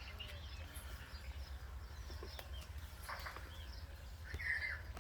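Birds chirping in short, scattered notes, with one louder call near the end, over a steady low background rumble.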